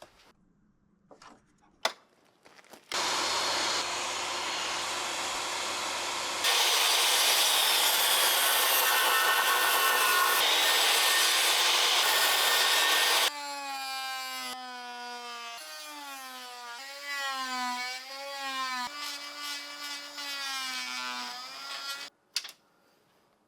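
Power tools working wood in a run of short clips: a few light knocks, then steady sawing noise that gets louder about six seconds in. After about thirteen seconds it gives way to a wavering, pitched tool whine that stops suddenly near the end.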